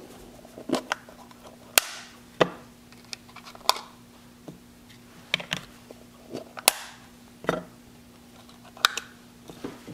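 Clear hard plastic receiver cases being opened and handled: irregular sharp plastic clicks and knocks as the lids come off and the boxes are put down.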